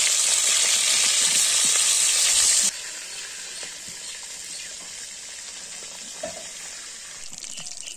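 Pieces of shol (murrel, snakehead) fish sizzling as they fry in oil in a karahi, stirred with a metal spatula. The loud sizzle drops abruptly to a quieter one about two and a half seconds in.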